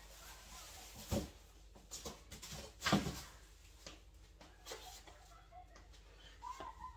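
Boxes and gift-wrapping supplies being handled on a table: a few knocks and thuds, the loudest about three seconds in, with light rustling between.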